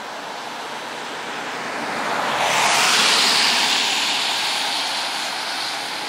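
A vehicle passing by: a rushing tyre hiss that swells smoothly to a peak about three seconds in and then fades away.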